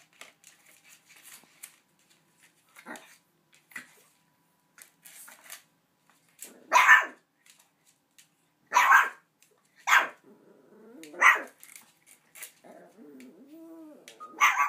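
Small puppy barking sharply at a big rawhide bone, about five loud yaps from halfway on, with low growling between the later ones and light scuffling before. The bone is longer than he is, and the owner thinks it scared him.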